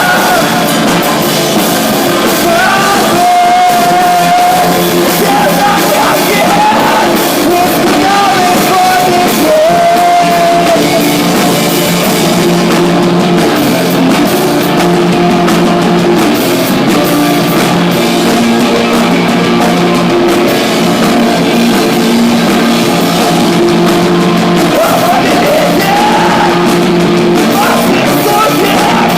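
A rock band playing live, with a voice singing over the band for the first ten seconds or so and again near the end.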